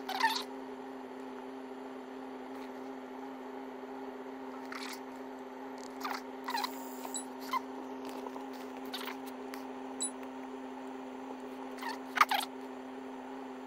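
Fingertip taps and clicks on a handheld scan tool's touchscreen, a few scattered short ticks with the loudest near the start and near the end, over a steady hum in a car cabin.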